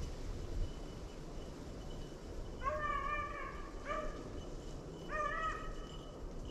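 Beagle baying on a rabbit's trail: a long bawl, a short yelp right after, then another shorter bawl.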